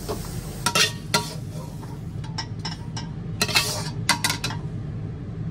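Metal wok spatula stirring and scraping shredded greens in a wok and knocking against its rim, in irregular clinks and clanks, as the vegetables are tipped and scraped out onto a plate. A steady low hum runs underneath.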